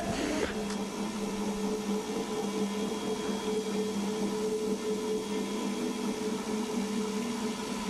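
A steady low hum made of two held tones over a background hiss, with no distinct events.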